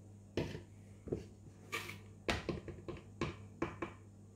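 A metal spoon knocking and scraping against spice containers and the pan while spices are scooped and added: a series of short clicks and knocks, with a faint steady hum underneath.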